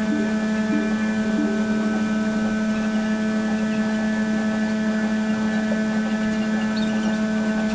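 A steady low hum with several higher held tones above it. A faint, short, repeating pattern of notes stops about a second and a half in.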